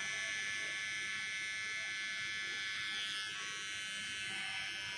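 Electric hair trimmer running with a steady buzz as its blade cuts short hair at the side of the head, fading the hair above the ear.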